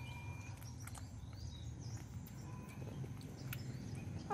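Faint rural outdoor ambience: a low steady rumble with scattered faint bird chirps and small soft ticks.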